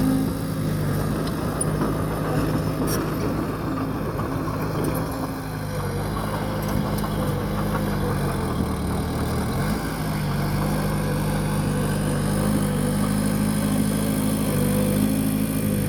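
Bulldozer's diesel engine running steadily, its pitch dipping for a couple of seconds about halfway through, then coming back up.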